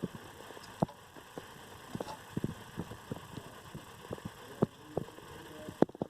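Scattered, irregular light clicks and knocks of hands and tools working on a VCR's mechanism, with a louder pair near the end, over a faint steady hiss.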